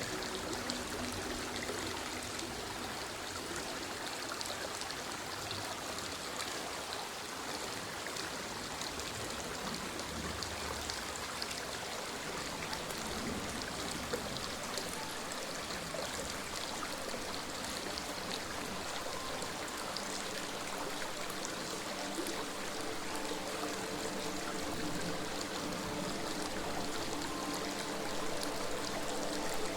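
Running water from a stream, a steady even flow without breaks.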